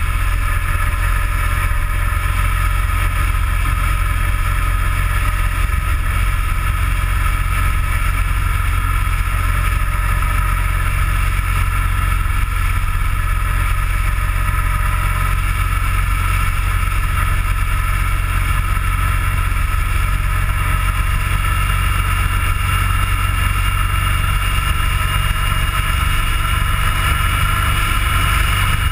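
Steady engine, tyre and wind noise of a vehicle cruising on the road, picked up by a camera mounted on the vehicle, with a strong constant low rumble. A faint whine rises in pitch near the end.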